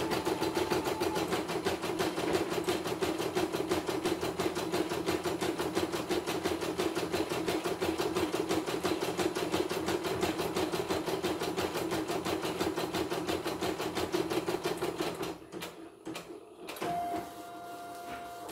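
CNY E900 portable embroidery machine stitching a design at speed, its needle going in a rapid, even rhythm. The stitching stops about fifteen seconds in, and near the end a steady beep sounds as the design finishes.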